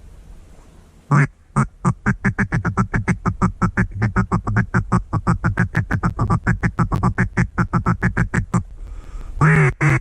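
Duck quacking, close and loud: one long quack about a second in, then a fast, even run of short quacks, about six a second, for some seven seconds, and another long quack near the end.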